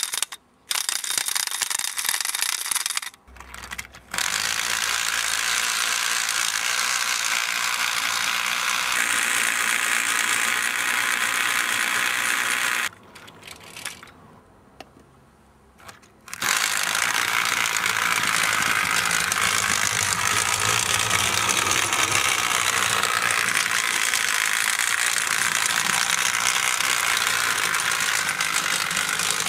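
Battery-powered knockoff toy train engine's small electric motor and gearing running steadily, then the train running around its plastic track. It stops for about three seconds near the middle and starts again.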